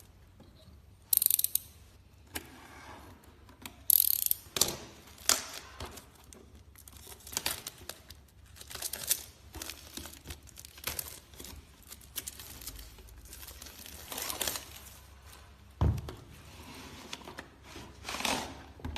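Hands handling small parts and packaging: irregular crinkling, rustling and scraping with sharp clicks, the loudest about a second in and around four seconds in, and a dull knock near the end. No power drill is running.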